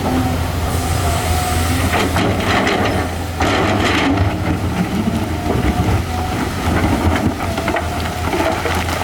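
Diesel engine of a hydraulic excavator running with a steady low hum, with a stretch of clattering from about two to four seconds in as rock is handled.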